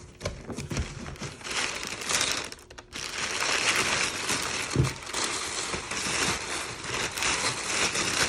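Packaging being unwrapped and handled by hand: crinkling and rustling, with a few light knocks in the first second and another about five seconds in.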